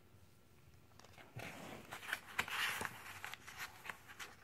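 Faint rustle of a paper picture-book page being turned, loudest about two and a half seconds in, with a few light clicks of hands on the book.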